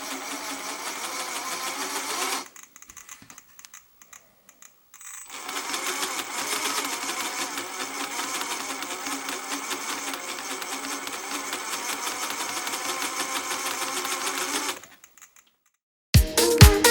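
Axial SCX10 III RC crawler's transmission running with a rapid clicking, in two runs with a pause of about three seconds between them. The owner traced the click to gears seated on their square-sided pin slots instead of the round side.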